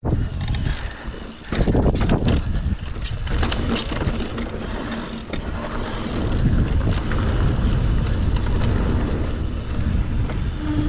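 Electric mountain bike being ridden over a rough dirt trail: tyre rumble with the frame and chain rattling over bumps, and wind buffeting the microphone.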